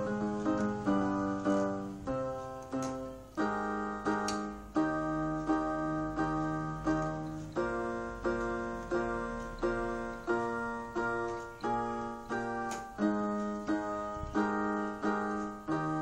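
Portable electronic keyboard played with a piano voice: chords struck repeatedly in a steady rhythm, about two a second, each fading before the next, with the bass note changing every couple of seconds.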